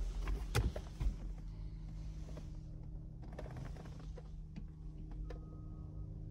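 Scattered faint clicks and rustles of hands and a phone moving over a car's interior trim and seat, over a low steady hum.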